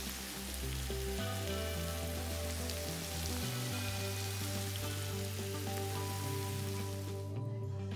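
Oil sizzling in a frying pan of fried eggs, broccoli and green pepper, a steady hiss that cuts off suddenly near the end, under background music with held bass notes.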